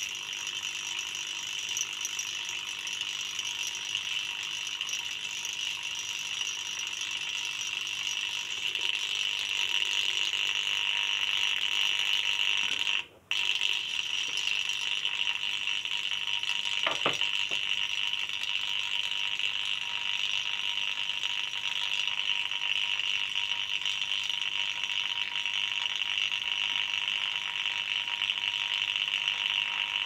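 High-voltage AC plasma arc between two tin electrodes at the water's surface, crackling steadily as it makes colloidal tin. It cuts out for a moment about halfway through and comes straight back.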